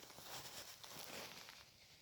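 Faint rustling with a few soft clicks, like light handling of objects.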